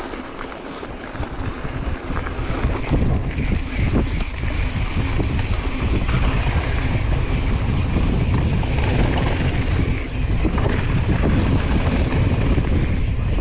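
Wind buffeting the action camera's microphone with the rumble of mountain bike tyres rolling over a dirt trail on a descent. The rumble grows louder about two seconds in and stays loud.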